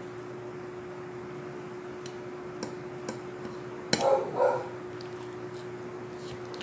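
Metal fork clicking and scraping on a ceramic dinner plate: a few light clicks, then a sharper click about four seconds in, followed at once by two short voiced sounds. A steady low hum sits in the background.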